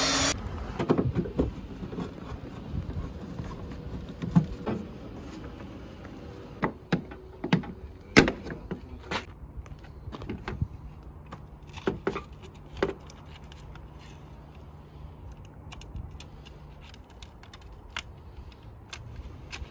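A drill with a step bit stops just at the start. Then comes a scattered series of sharp clicks and light knocks as the plastic number-plate trim and the camera cable with its plugs are handled, the loudest about eight seconds in.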